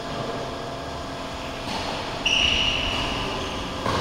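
Steady background noise of an indoor badminton hall. About two seconds in, a short, high, steady squeak holds for about a second.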